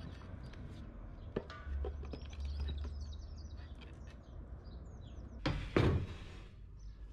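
Birds chirping in the background, with a light click just after a second in and a short, loud scraping noise about five and a half seconds in.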